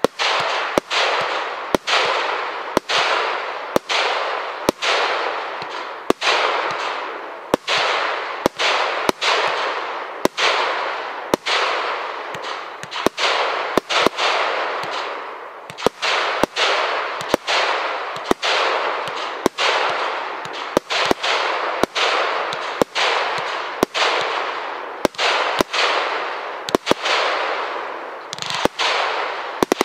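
Celtic Fireworks Oceanic, a 36-shot barrage cake, firing golden brocade palm shells about once a second. Each shot is a sharp bang followed by a hissing tail that fades until the next.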